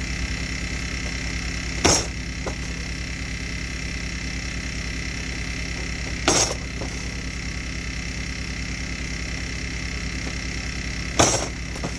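Tin snips shearing through 12-gauge galvanized steel strap: three sharp snaps about four and a half seconds apart, each followed by a fainter click, over a steady background hum.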